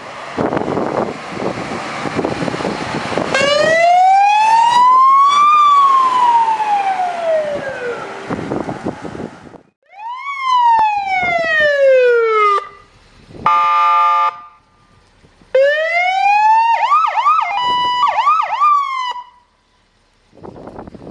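Fire truck sirens. First comes the truck's engine and wind noise, then one slow wail that rises and falls. After a cut, a siren winds down, a horn sounds for about a second, and a siren rises and breaks into a quick yelp.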